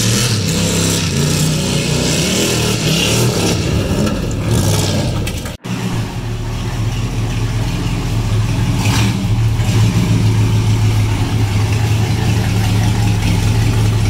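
Old Chevrolet pickup truck's engine revving hard as the truck slides across a dirt and grass lot, with tyre and dirt noise under it. After a sudden cut about five and a half seconds in, the same engine runs steadily at a loud idle.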